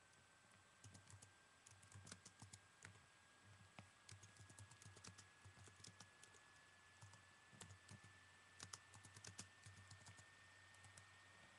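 Quiet, irregular light clicks and taps of hard plastic, with soft low thumps, from small hard objects being handled close to the microphone.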